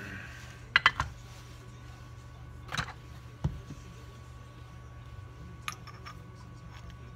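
Steel gearbox parts clinking and knocking as they are handled and wiped on a workbench: a quick cluster of sharp clinks about a second in, two single knocks around three seconds, and light clicks near six seconds, over a steady low hum.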